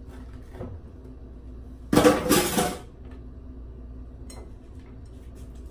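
A short clatter of a table knife against crockery and a wooden cutting board on a kitchen counter, about two seconds in and lasting under a second. A few faint taps of the knife and board come before and after it.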